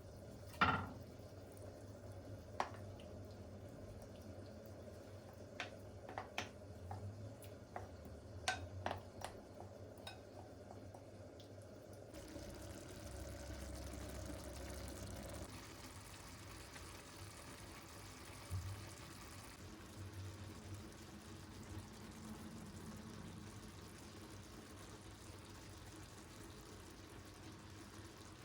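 Kitchen handling sounds: a series of sharp clicks and taps of utensils or dishes over the first ten seconds, then a steady watery hiss of liquid from about twelve seconds on.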